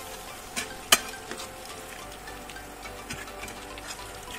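Marinated chicken pieces sizzling as they shallow-fry in oil in a non-stick pan, while a perforated metal spatula scrapes and taps against the pan as they are stirred, with one sharp tap about a second in.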